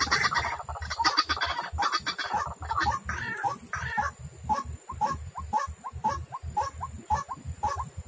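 White-breasted waterhen (ruak-ruak) calling: a fast run of short repeated notes, busier in the first few seconds, then settling into an even beat of about three notes a second.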